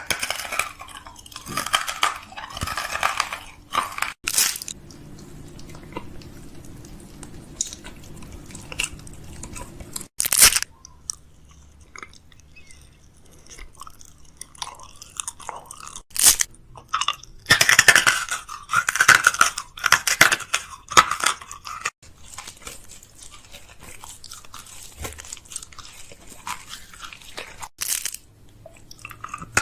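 Crunching in several separate spells, the longest about three and a half seconds, with much quieter stretches between.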